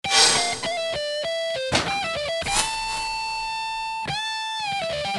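Electric guitar playing a short lead melody as an intro jingle: a few quick notes, then one long held note that bends down and back up about four seconds in, then quicker notes again.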